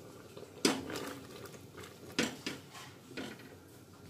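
Steel and aluminium kitchenware clinking: four sharp metallic knocks and clatters, the loudest about half a second in, as the plate of dhokli and the pressure-cooker pot are handled.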